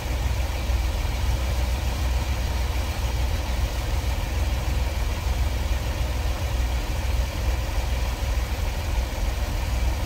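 A Chevrolet Astro van's 4.3-litre V6 idling steadily with the engine cover off, heard from inside the cab. It is being checked for misfires just after a new fuel-injector spider assembly was fitted.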